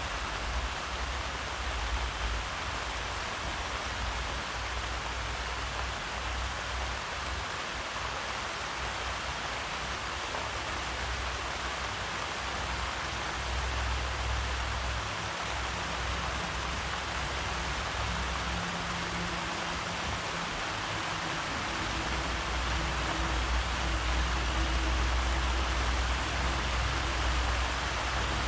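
Steady rainfall, an even hiss, with a low uneven rumble underneath. A faint low hum comes in about halfway through.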